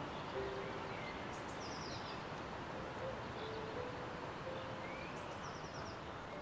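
Steady outdoor background noise with scattered bird calls: several short low flat notes and, twice, a quick high trill of about five notes.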